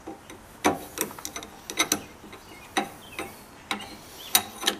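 Hydraulic bottle jack being pumped by its long steel handle under a heavy load, lifting a hitch-mounted motorcycle carrier: a sharp metallic click or clack with each stroke, about once a second, some strokes giving two clicks close together.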